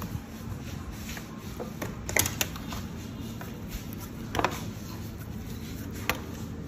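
A few light taps and knocks from hands handling pieces of milk candy on a plastic-covered table, over a low steady hum.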